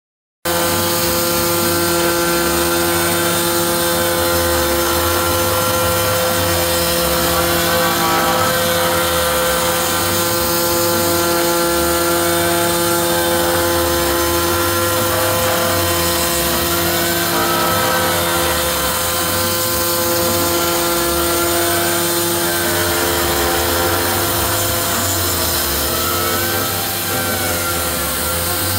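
Desktop CNC router spindle running with a steady whine while its end mill bores a hole in aluminum bar stock, over the hiss of a compressed-air blast that cools the bit and clears chips. The cut rises and falls in a repeating cycle about every two seconds. The sound starts abruptly about half a second in.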